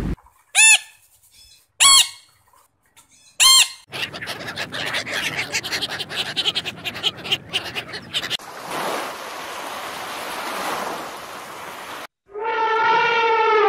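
Three loud, short squawks from a blue-and-yellow macaw, then a flock of white domestic ducks quacking rapidly, and near the end an elephant gives one long call that falls in pitch.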